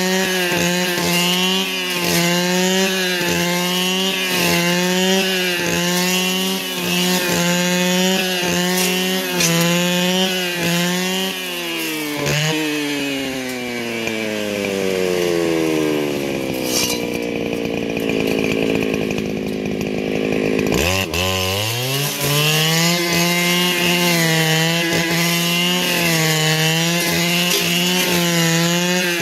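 Small two-stroke engine of a handheld power tool running at high revs, its pitch wavering under load as it cuts. Near the middle the throttle is released and the engine winds down to idle over a few seconds, idles briefly, then revs back up to full speed.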